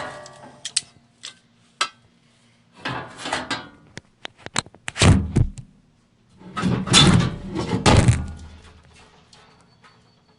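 Loose sheet-metal body panels being pulled out and handled: a series of knocks and clanks, loudest about halfway through and again near the end.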